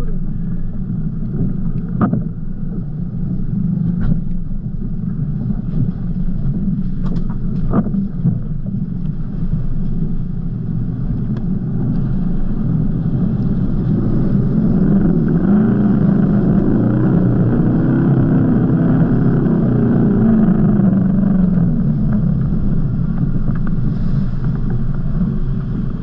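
Four-wheel-drive engine running steadily at low speed, heard from inside the cabin, with a few sharp knocks in the first eight seconds as it rolls down the rocky bank. Through the middle the engine works harder and its revs waver as the vehicle pushes through deep river water, with a bow wave over the bonnet adding a rushing sound, before it settles back.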